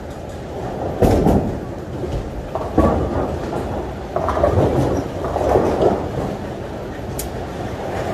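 Bowling alley din: a steady low rumble of balls rolling down the lanes, with sharp knocks and clatters of balls and pins about a second in, near three seconds, and a crack about seven seconds in.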